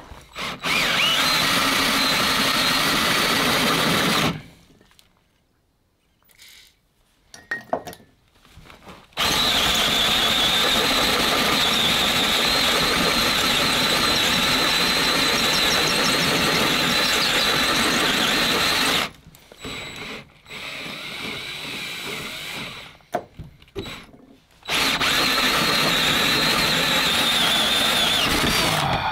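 DeWalt cordless drill boring into steel in three long runs with short pauses between, the bit giving a steady high squeal as it cuts.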